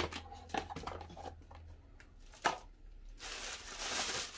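Grocery packages being handled on a counter: a few light knocks and taps as items are set down, then a rustle of packaging from about three seconds in.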